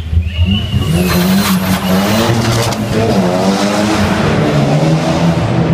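Nissan Silvia revving hard in a burnout, its engine pitch wavering as the rear tyres spin and screech from about a second in, echoing off the concrete tunnel walls.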